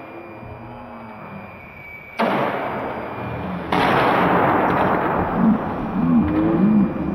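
Small foam indoor RC plane crashing onto a gym floor: a sudden loud, noisy burst about two seconds in, growing louder again a second and a half later as the plane hits and breaks apart.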